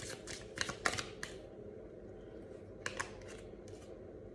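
Tarot cards being shuffled by hand: a quick run of crisp card clicks in the first second or so, then quieter, with a few more clicks about three seconds in.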